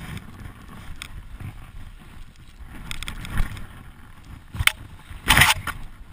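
Skis sliding through deep powder snow, with a steady rustle of motion noise on a body-mounted camera's microphone. A few short, sharp bursts of noise cut in, the loudest about five seconds in.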